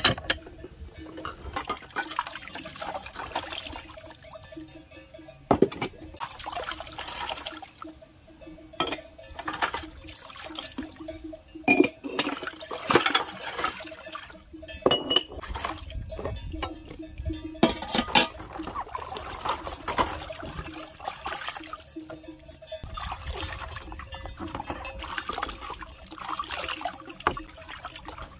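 Dishes being washed by hand in a plastic basin of water: water splashing and sloshing while ceramic mugs and enamel plates clink and knock against each other, with a few sharp clinks standing out.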